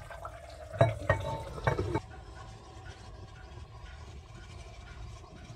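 Glazed ceramic lid being set back onto a clay pot of stew, knocking against the rim three times in the first two seconds. After that only a faint steady hiss is left.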